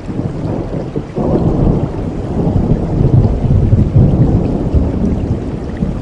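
Rain with a low rolling rumble of thunder that swells about a second in and keeps rolling.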